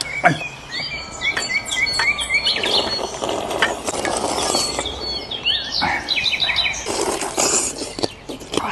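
Small birds chirping in quick short calls over a steady background hiss, with scattered clicks.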